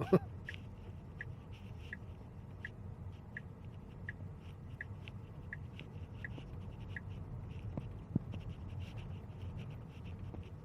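A Tesla's turn-signal ticking, about one and a half ticks a second, stopping about seven seconds in, over a low steady hum of road noise in the cabin. Right at the start a brief, louder sound falls quickly in pitch.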